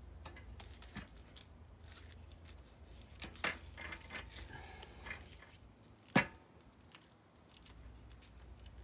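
Hands wrapping tape around an ATV muffler: faint handling sounds with a few sharp clicks or taps, the loudest about six seconds in, over a low steady hum.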